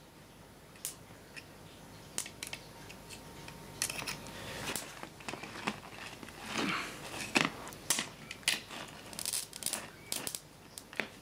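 Irregular sharp snaps and crackles of electrical arcing as a charged capacitor bank discharges into a circuit board, burning through its traces and components. The snaps are sparse at first and come thicker from about halfway, with the sharpest one a little past halfway.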